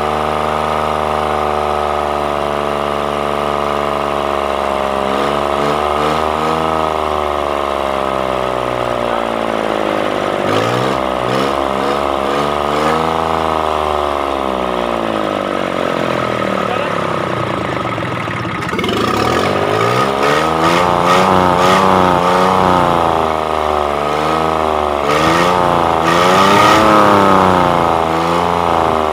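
Kubota D950 three-cylinder diesel engine running, its injection fault cured. It idles steadily, then is revved up and down by hand at the throttle linkage again and again, the swings growing bigger, quicker and louder in the second half.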